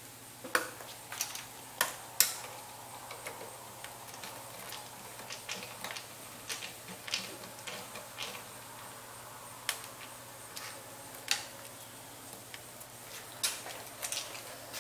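Irregular sharp clicks and light knocks from a one-handed bar clamp being squeezed and ratcheted tight on wooden frame trim, with the trim handled on a work table; the loudest clicks come about two seconds in and again near the end.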